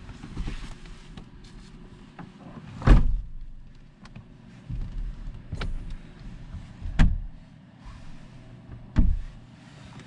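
Rear glass window of a truck camper shell being pulled down and shut from inside, with jacket rustling and three sharp knocks a couple of seconds apart.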